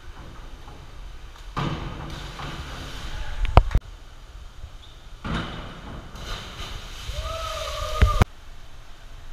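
Springboard diving in an echoing indoor pool hall: sharp bangs from the diving board and water splashing, heard twice. A short shout comes just before the second bang, near the end.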